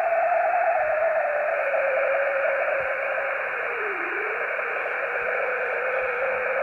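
Radio receiver hiss with a steady carrier tone from the 24 GHz test signal. Its pitch slides gently down and settles as the receiver is tuned onto it, with a brief dip about four seconds in.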